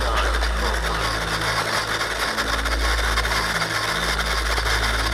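Small remote-controlled ground rover's electric drive motors and gearing running steadily, a continuous mechanical hum with a low rumble that drops out briefly a few times.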